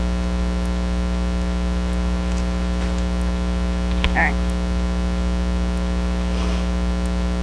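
Steady electrical mains hum with its overtones, running unchanged throughout. There are a few faint ticks, and a brief vocal sound about four seconds in.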